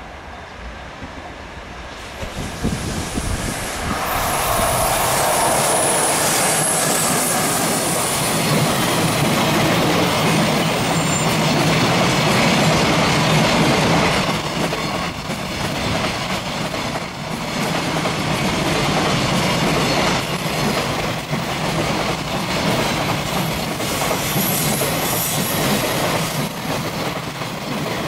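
Train passing close by. The noise builds about two and a half seconds in and stays loud as the cars run past, with the rhythmic clatter of wheels over rail joints.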